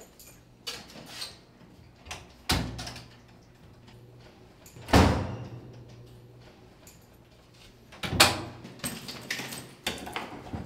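Apartment doors and their latches: single thuds with clicks about two and a half and five seconds in, the one at five seconds the loudest, then a quick series of knocks and rattles near the end.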